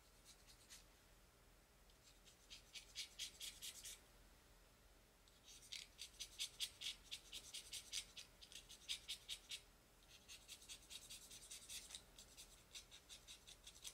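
Faint runs of rapid, scratchy strokes, about five a second, in three spells separated by short pauses.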